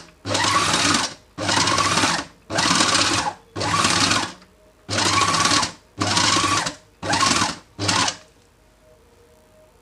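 Electric food processor run in about eight short pulses of roughly a second each, its blade kneading chapati dough; the pulses stop about eight seconds in.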